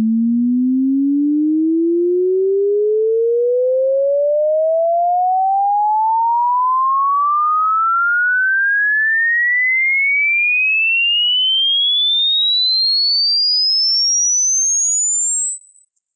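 A pure sine-wave test tone sweeping steadily upward in pitch, from a low hum to a high whistle, switching to small upward steps near the end: a hearing-range test tone.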